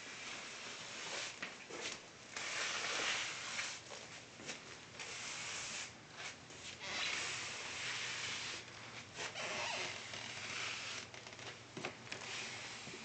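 A slipper scuffing and sliding across a tile floor with a dachshund puppy hanging on to it: several long scraping swishes, a second or two each, with short pauses between.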